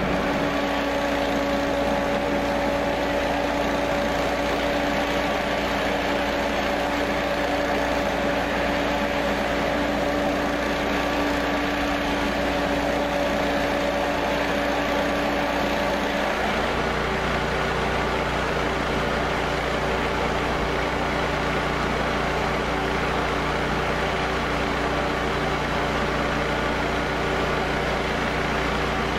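Engine running steadily with a constant hum, typical of fire apparatus at a fire scene. About sixteen seconds in, the hum changes to a lower-pitched one.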